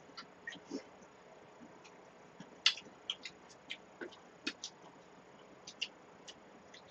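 Faint eating sounds from spoons and stainless steel bowls of cold acorn jelly soup: a scattered series of short clicks and smacks, the loudest about two and a half seconds in and again a little after four seconds.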